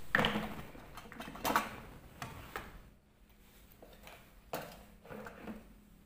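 Plastic housings of washing-machine PCB control modules knocking and clattering as they are picked up and handled, a series of separate knocks and rattles.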